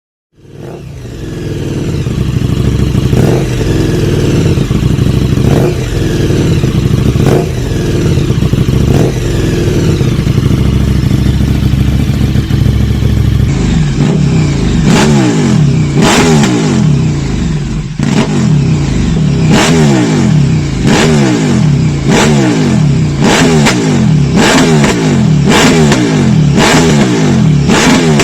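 KTM 1290 Super Duke R's V-twin engine through an Austin Racing RS2 exhaust, being revved: occasional throttle blips at first, then from about halfway sharp blips about every one and a half seconds, the revs dropping back after each.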